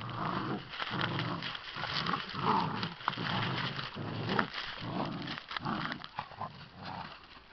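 Puppies growling in play as they tug and wrestle over a cloth: a string of short low growls, one after another, with scuffling on dry palm fronds.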